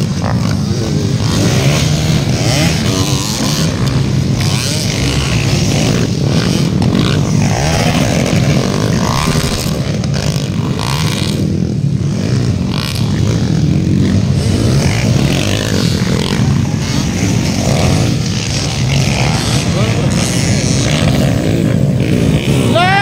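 Several dirt bike engines running and revving, their pitch rising and falling as the riders accelerate and ease off, with crowd voices underneath. Near the end one bike revs sharply up and back down.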